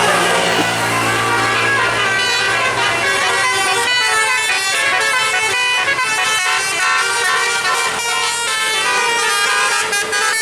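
Bus 'telolet' musical air horn playing a tune: a long run of horn notes changing pitch in steps, loud and continuous. A low steady hum sits beneath the first few seconds.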